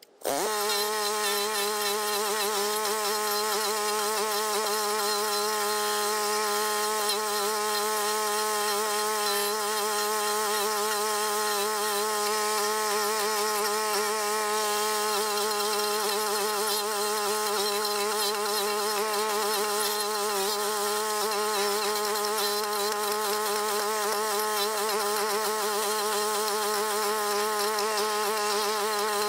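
Small gas engine of a Toro rental stump grinder running, a steady buzzing drone that holds one pitch throughout. It comes in abruptly at the very start.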